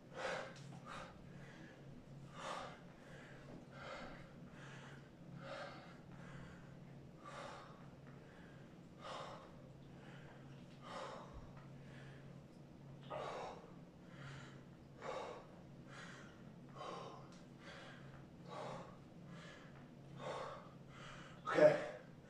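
A man breathing hard from exertion during a bodyweight exercise: short, forceful breaths about once a second, with a louder one near the end. A faint steady hum sits underneath.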